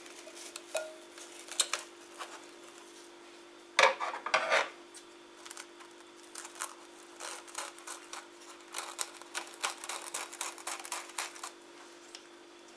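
Plastic cling film being pulled from its roll, cut and pressed over a glass bowl: crinkling and rustling, with the loudest burst about four seconds in and a quick run of crackles near the end.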